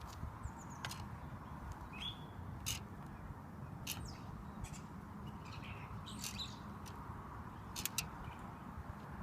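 Bicycle wheel spokes ticking and squeaking where they cross and rub against each other as the wheel flexes under pedalling load: irregular sharp ticks with short high chirps between them.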